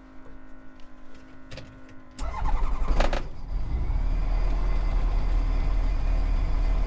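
Bristell light sport aircraft's Rotax engine cranking and catching about two seconds in, then running steadily: a cold start on full choke.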